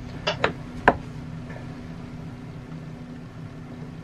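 Three sharp metallic clicks in the first second as an open-end wrench works loose a small fitting on a diesel fuel manifold. A steady low hum runs underneath.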